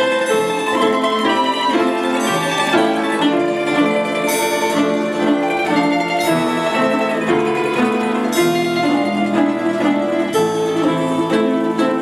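An orchestra playing, many instruments holding and moving through notes together, with a lower bass part joining about two seconds in.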